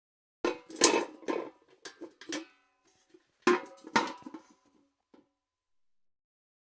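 Metal bucket clanking: a quick run of knocks and rattles with the metal ringing after them, then a second, shorter run about three and a half seconds in, and one last light tap.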